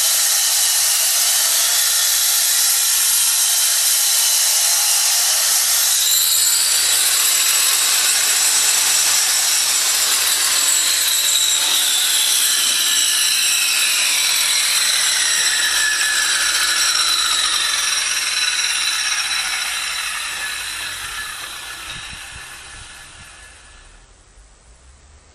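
A power tool working marble runs with a loud, steady hiss. About six seconds in a high whine joins it, and from about eleven seconds its pitch falls steadily as the tool winds down, the noise fading away over the last few seconds.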